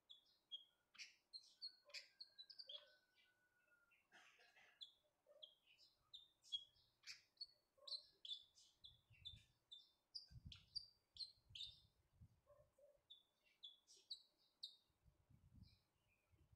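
Faint caged songbird singing a quick run of short, high chirps, in phrases that pause and start again. Soft low thumps come in from about nine seconds in.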